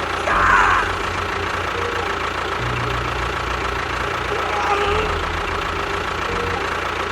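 An engine running steadily with a low, pulsing throb. A short voice-like sound comes about half a second in, and another faint one near five seconds.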